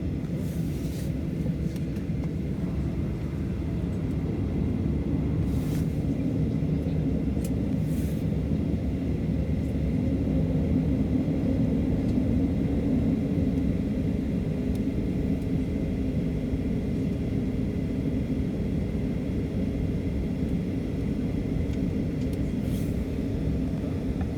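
Boeing 737 cabin noise just after landing: a steady low engine and rolling noise heard from inside the cabin. It swells from a few seconds in to a peak near the middle, then eases off, with a few faint clicks.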